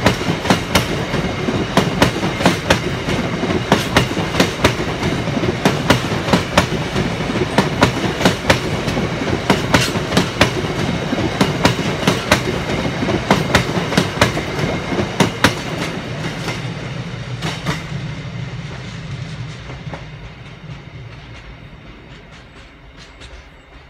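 Empty bogie hopper wagons of a freight train rolling past, their wheels clicking over the rail joints in a steady, rhythmic clickety-clack over a rumble. From about two-thirds of the way in the sound fades away as the end of the train draws off.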